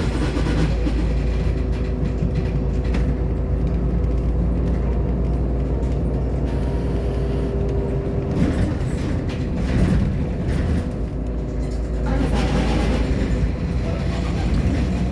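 Irisbus Agora L city bus running: a steady low engine rumble with a whine on top that fades out about halfway through.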